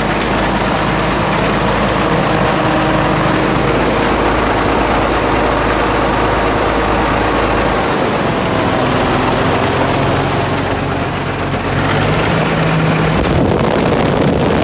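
Caterpillar D8 crawler tractor's engine running steadily, its note shifting about eight seconds in and again near the end.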